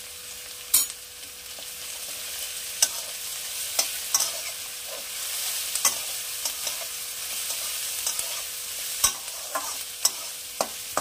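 Chopped onions, garlic and green chillies sizzling in hot oil in a metal kadai, while a metal spatula stirs them, scraping the pan and clicking against it about ten times, loudest about a second in.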